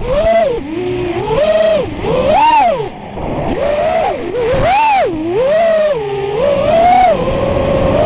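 Small FPV quadcopter's electric motors and propellers heard from the onboard camera, whining in repeated swoops that rise and fall in pitch with the throttle, about six or seven times, then holding a steadier pitch near the end.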